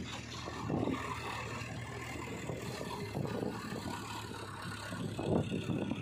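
Sonalika DI 750 RX tractor's diesel engine running steadily as it pulls a trailer loaded with mud.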